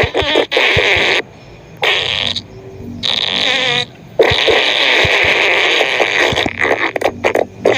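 Long, loud fart sound effect: drawn-out flatulence that breaks off briefly three times in the first four seconds, then runs on unbroken with a fast flutter near the end.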